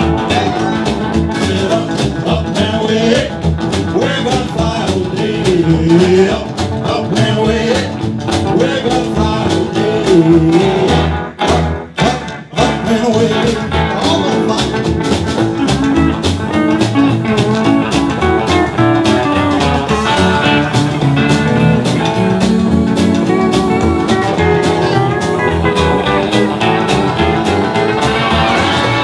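Rockabilly band playing with guitar, a male singer's voice over it in the first part. About halfway through the band breaks off briefly for a few sharp hits, then comes back in with guitar-led playing.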